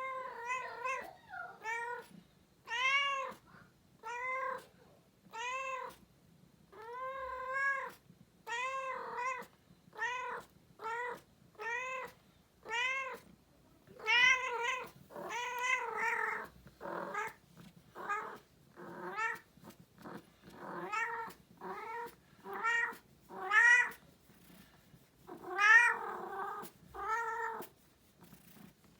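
Female domestic cat in heat calling: a long run of meows, about one a second, each rising then falling in pitch, growing louder from about halfway on.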